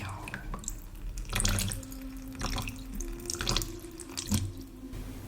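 Water splashing and dripping in four or so short bursts, as in layered ASMR water sounds, over a faint steady low tone.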